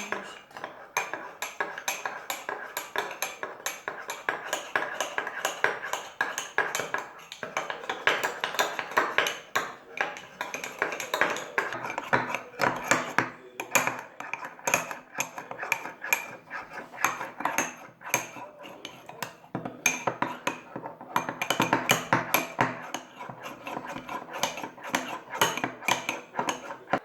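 A spoon stirring egg yolk and honey together, clicking rapidly and continuously against the side of its container.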